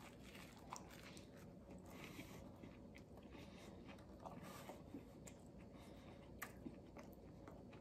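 Near silence with faint chewing of a mouthful of sub sandwich: a few soft, scattered mouth clicks.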